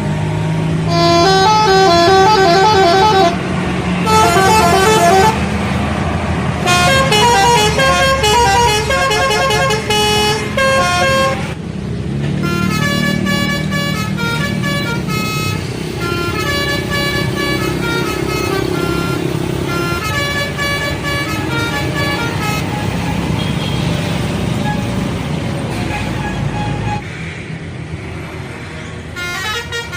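Bus telolet horns, multi-tone air horns, playing quick melodic sequences of stepped notes, burst after burst, over a bus engine's low running.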